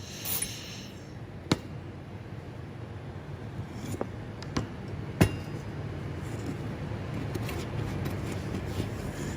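A short hiss at the start, then a few sharp knocks of metal parts being handled, the loudest about five seconds in, over a steady low hum.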